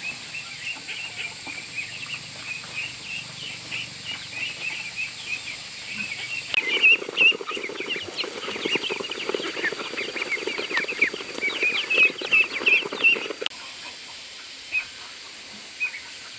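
A brood of baby poultry (chicks or ducklings) peeping continuously, many short high calls overlapping. The peeping gets louder and busier about seven seconds in, then drops off suddenly about two-thirds of the way through, leaving only a few scattered peeps.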